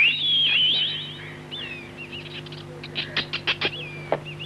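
A high, warbling whistle that slides up and down, then a quick run of squeaky chirps and clicks: a cartoon squirrel's chatter answering a whistled call. A faint steady low hum runs underneath.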